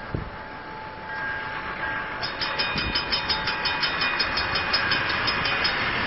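Level-crossing warning bell starting to ring about two seconds in, a rapid, even series of strikes about four a second, over background noise that grows steadily louder.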